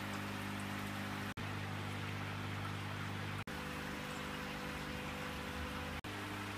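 Steady hum of aquarium air pumps and filters over a hiss of bubbling, running water. It drops out for an instant three times, and the hum's pitch mix shifts slightly after each dropout.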